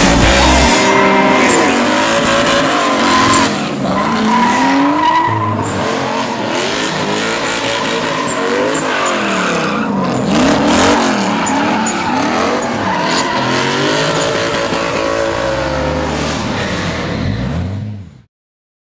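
Two drift cars, a 1UZ V8-swapped Toyota Corolla KE70 and a Nissan Cefiro, sliding in tandem: engines revving up and down over and over as the tyres squeal and skid. The sound stops abruptly near the end.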